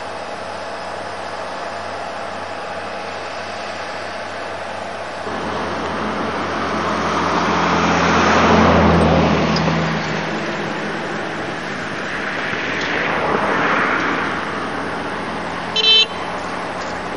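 Motor vehicles passing close by over steady background noise: a louder one swells and fades about a third of the way in, and a fainter one follows a few seconds later. A short car horn toot sounds near the end.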